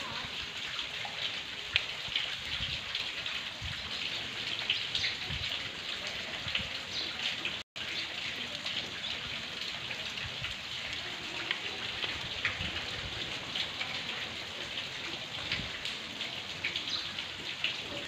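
Steady rain falling on wet ground: a dense even hiss with many small drop taps. The sound drops out completely for an instant about eight seconds in.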